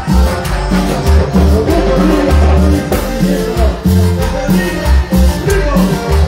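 Live cumbia band playing loudly through a PA, with a steady pulsing bass beat under the melody.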